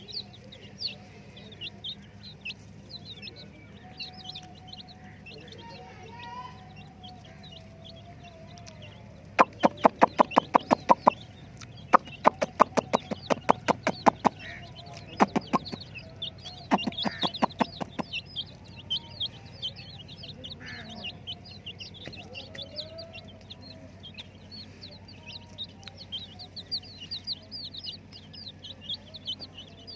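A brood of chicks peeping: many short, high cheeps that slide downward, going on throughout. From about a third of the way in to just past the middle, a much louder rapid train of sharp pulses, about seven a second, comes in four bursts.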